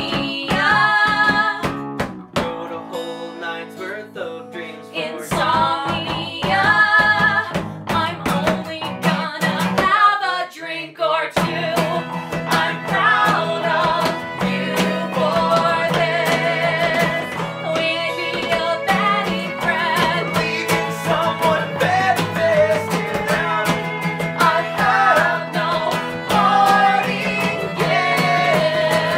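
A small band plays a song acoustically: a strummed acoustic guitar and a bass guitar, with several voices singing and hand slaps on a wooden desk as percussion. The low part fills out about eleven seconds in, and a violin plays in the later part.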